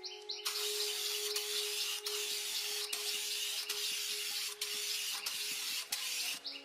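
A long, even hiss of compressed air that starts abruptly about half a second in and cuts off shortly before the end. Birds chirp briefly at the start and again at the end.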